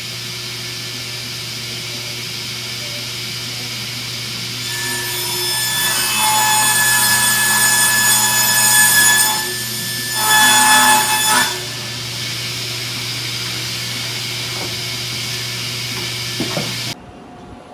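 Powermatic table saw running steadily while a large sheet is pushed through the blade. The cut grows louder and whining for about five seconds, eases briefly, then rises again for a shorter stretch before the saw settles back to a steady run.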